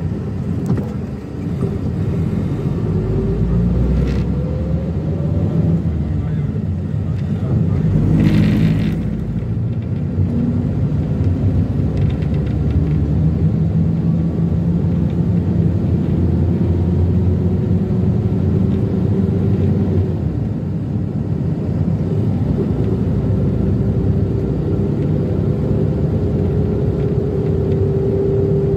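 Minivan engine and road noise while driving: a steady low rumble. A brief louder rush of noise comes about eight seconds in, and the engine note slowly climbs over the last several seconds.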